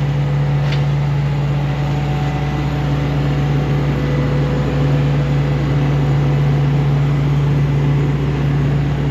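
Engine of a sandblasting rig's air compressor running at a constant speed: a steady, even drone.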